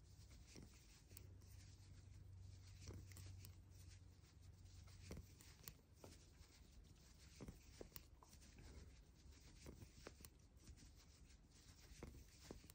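Faint, irregular clicks and rubbing of knitting needles and yarn as stitches are worked, over a low steady hum.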